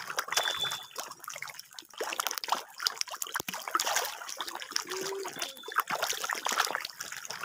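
Many walking catfish (magur) thrashing at a pond's surface, making a continuous patter of small splashes and slaps in quick, irregular succession.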